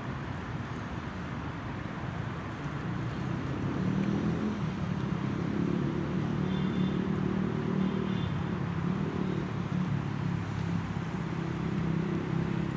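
An engine running steadily over a background hiss, growing louder about four seconds in.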